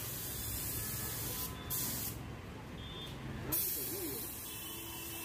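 Gravity-feed compressed-air spray gun spraying paint onto a plastic car bumper: a steady hiss that stops briefly twice in the middle, the longer break lasting about a second and a half.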